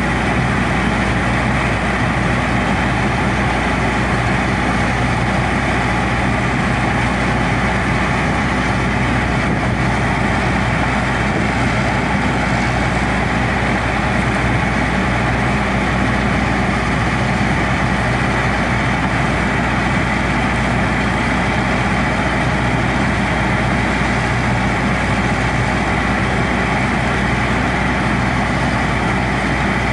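Fortschritt E514 combine harvester working through a crop of winter barley: its diesel engine and threshing machinery run steadily under load. An even hum with a rushing noise over it, unchanging throughout.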